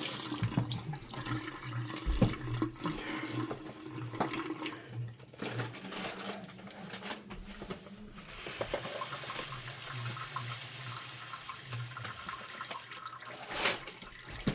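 Kitchen sink just after the hot tap is shut off: hands being washed, with water draining and dripping and scattered small clicks and knocks. A short burst of noise comes near the end.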